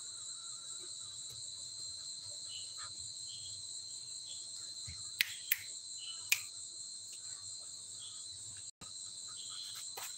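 Steady high-pitched chirring of a night insect chorus, like crickets. Three short sharp clicks come about five to six seconds in.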